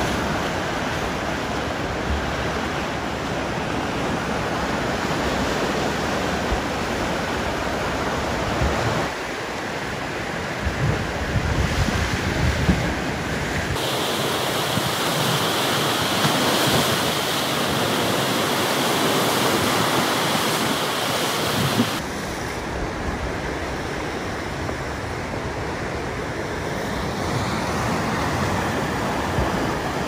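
Ocean surf washing and breaking over rocky shoreline ledges: a continuous churning rush of water. Its character shifts abruptly a few times.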